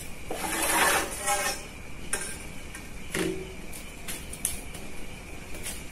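Cardboard and a ruler being handled and shifted on a wooden tabletop: light rustling and scraping with a few small taps.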